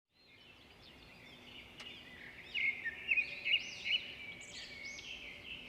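Birds chirping: a run of quick, arching high notes, several overlapping at once, loudest in the middle.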